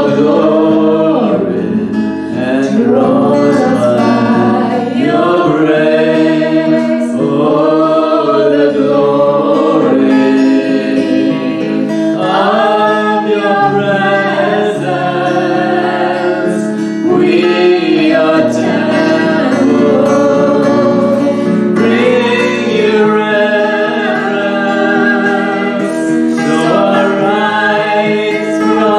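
Worship music: several voices sing long, gliding notes over steady held instrumental chords.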